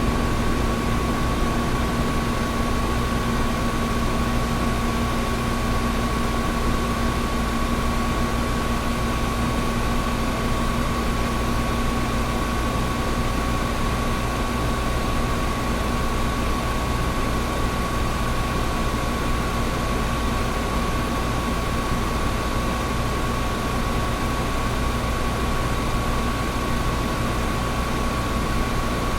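Air conditioner running steadily: an even rush of air with a constant hum, a low tone and a higher whine held unchanged.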